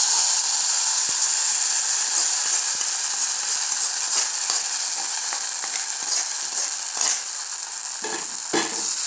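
Hot oil tempering of fried coconut, dried red chillies and curry leaves sizzling steadily as it hits the jackfruit curry, easing a little toward the end. A couple of short knocks come near the end.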